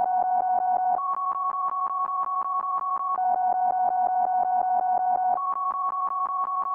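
Background music: a keyboard or synthesizer figure of quick, evenly pulsing repeated notes. It switches between two chords about every two seconds.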